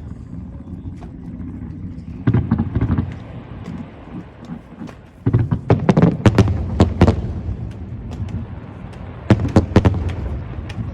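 Aerial fireworks bursting overhead: a short cluster of rapid bangs about two seconds in, a longer volley of bangs from about five to seven seconds in, and another short cluster near the end, over a steady low rumble.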